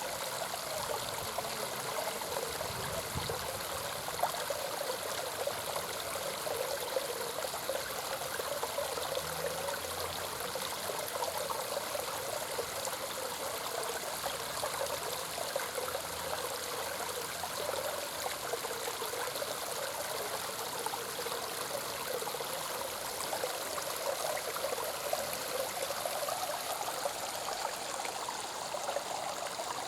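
Homemade sandstone garden waterfall, about 1.5 m high, splashing steadily into a small pond.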